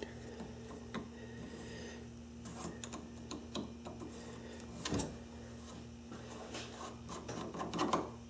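Light metal clicks and scrapes of small parts being worked off by hand from the end of a drill press spindle, with a sharper click about halfway and a flurry of clicks near the end, over a steady low hum.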